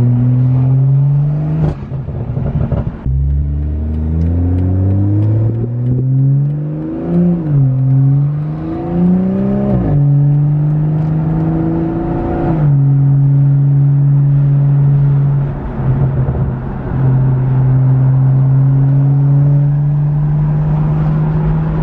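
BMW M340i's turbocharged 3.0-litre inline-six running through a straight-piped catback with the muffler and exhaust valve removed, heard loud inside the cabin while driving. It rises in pitch under acceleration with a few upshift drops around the middle, then holds a steady tone at a constant cruising speed.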